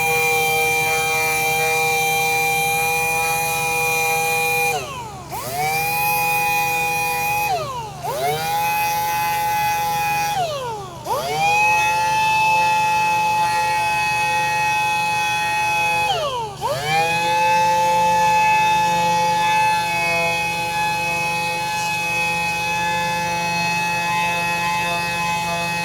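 Power sander whining steadily while sanding curb rash on an alloy wheel. Four times its pitch drops sharply and winds back up as the tool slows and spins up again.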